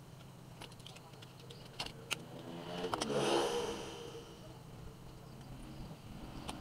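A few small sharp clicks and taps of laptop parts being handled during a RAM module install. About three seconds in, a passing motor vehicle swells and fades, and it is the loudest thing here.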